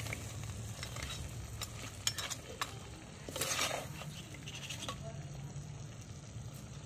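A steel ladle stirring thick crab masala in a clay pot, scraping and clinking against the pot in short bursts, with the masala sizzling faintly in its oil. A steady low hum runs underneath.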